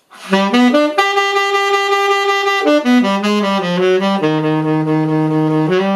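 Tenor saxophone playing a solo phrase: a quick rising run into a long held note, then a run of shorter notes downward that settles on a long low note near the end.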